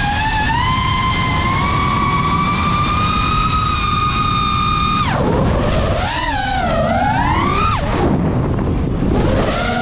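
GEPRC Mark 5 five-inch FPV quadcopter's brushless motors and propellers whining at a steady high pitch, with rushing air beneath. About five seconds in the throttle is chopped: the whine drops sharply, wavers up and down with the stick, falls again near eight seconds and climbs back near the end.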